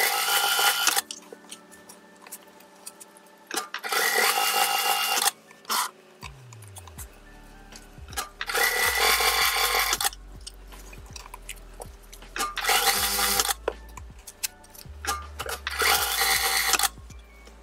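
Juki industrial sewing machine running in five short bursts of a second or so each, stitching through gathered fabric scrunchies, over quiet background music.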